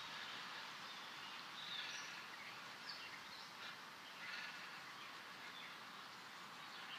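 Faint steady background hiss with a few soft, brief high chirps scattered through it.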